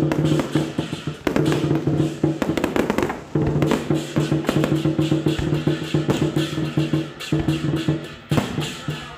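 Dense, rapid cracking over a steady held low tone: firecrackers going off amid festival music.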